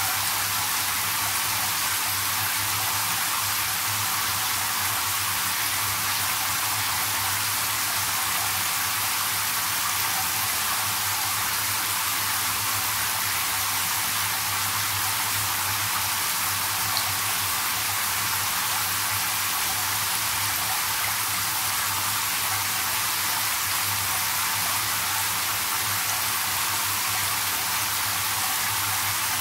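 Handheld shower head spraying into a filling bathtub: a steady, even rush of falling water splashing into the bath water.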